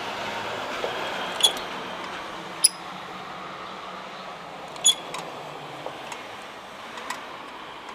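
Caulking gun clicking as its trigger is squeezed to push Dicor lap sealant out of the tube: three sharp metallic clicks with a bright ring, about a second or two apart, and a few fainter ticks, over a steady outdoor hiss.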